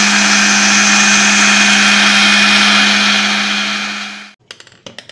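Electric mixer grinder (mixie) running steadily, blending jackfruit paste with milk, then winding down and stopping about four seconds in. A few light knocks follow near the end.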